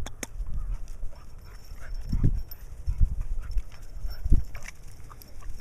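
Two puppies, a German Shepherd and a Miniature Pinscher, scuffling at play with small dog noises, and a few dull thumps, the loudest about two and four seconds in.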